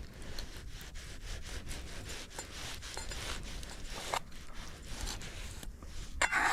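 A knife sawing through a cooked ribeye steak in a run of short back-and-forth strokes.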